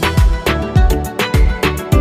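Background music with a steady beat, about three drum hits a second.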